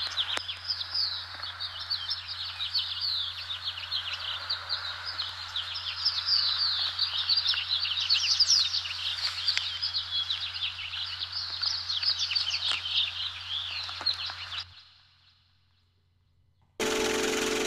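Many small birds chirping and twittering densely, over a low steady hum. It fades out about fifteen seconds in, and after a short near-silence, music starts near the end.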